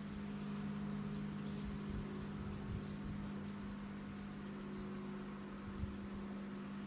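A steady low hum over a faint even hiss, with a soft low thump near the end.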